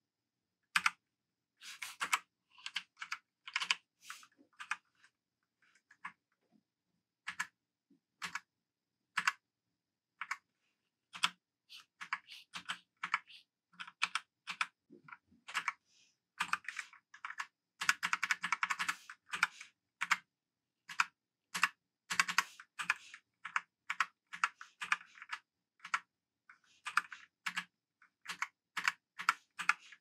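Keys on a Royal Kludge Sink87G TKL mechanical keyboard with RK brown tactile switches being pressed, giving irregular clacks: some single, some in quick runs.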